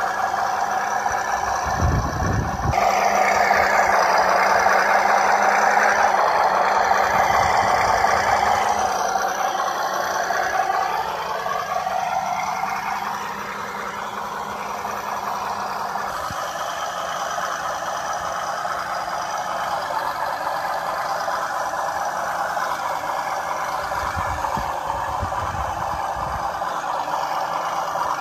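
Radio-controlled WPL B36 Ural 6x6 scale truck crawling over dirt and rocks, its small electric motor and gearbox whining steadily. The whine is louder for the first several seconds, then its pitch slides down and back up around the middle as the throttle changes, with a few low thumps along the way.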